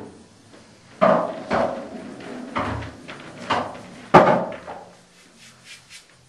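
Pool balls in play after a shot: a run of knocks and clunks as the balls strike the cushions and each other and drop into pockets, about five loud ones, then a few faint ticks near the end.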